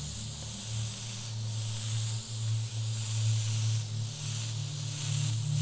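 Airbrush spraying white paint onto cardboard: a steady hiss of air, with a low steady hum underneath.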